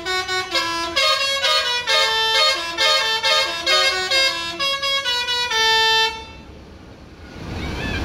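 Basuri telolet horn on an A.L.S 103 bus, a multi-trumpet musical air horn, playing a quick tune of short notes that ends on a longer held note and cuts off about six seconds in.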